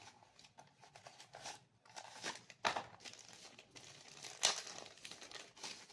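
Packaging being handled, crinkling and rustling in irregular bursts. There are two louder crackles, one about two and a half seconds in and one about four and a half seconds in.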